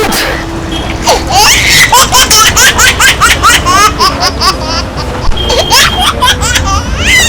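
High-pitched laughter in quick rhythmic bursts, about three a second, starting about a second in.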